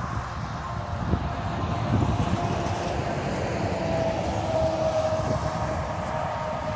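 Wind rumbling on the microphone, with a faint distant engine drone whose pitch rises slightly about four seconds in.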